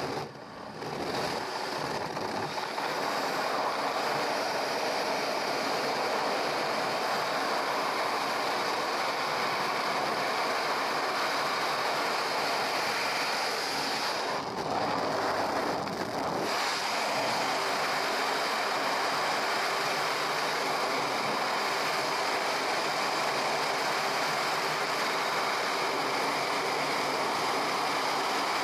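Freefall wind rushing over a skydiver's helmet-camera microphone: an even, loud rush of air that builds over the first second or two and then holds steady, with a brief duller stretch around the middle.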